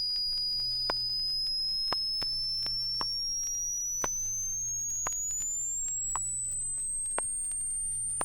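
Test-record sine tone sweeping slowly and steadily upward from about 5,000 to nearly 10,000 cycles, part of a continuous audio-frequency sweep. Vinyl surface clicks come roughly once a second over a low steady hum.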